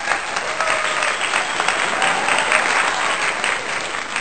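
Crowd applauding: a loud, dense, steady clatter of many hands clapping.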